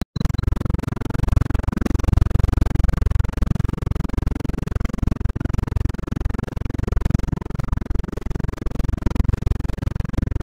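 Car cabin noise: a dense, fluttering low rumble of engine and tyres on the road, picked up by a phone's built-in microphone.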